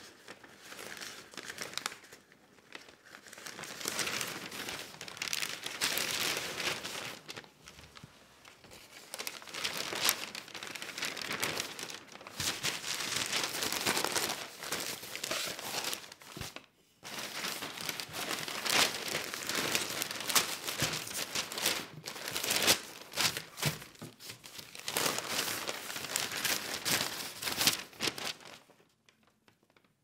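Newspaper being handled and its pages turned: dry paper rustling and crinkling in irregular bursts with brief pauses between page turns, stopping shortly before the end.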